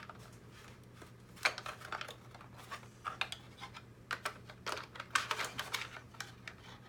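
Small hard plastic parts of a RoboMaster S1 robot clicking and rattling as they are handled and fitted together, in quick irregular clusters of clicks.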